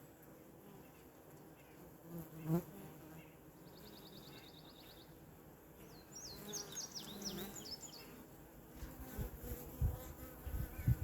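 Honeybees buzzing around the hive entrance: a faint steady hum, with one bee passing close to the microphone about two and a half seconds in.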